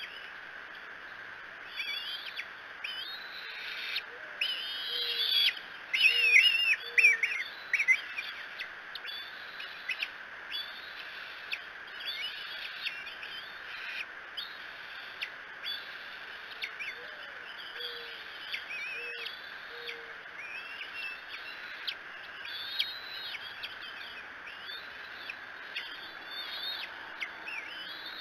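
Bald eagles calling: repeated high, thin whistles and chitters that glide in pitch, loudest about six to eight seconds in. Twice in the background a mourning dove coos a phrase of four low notes.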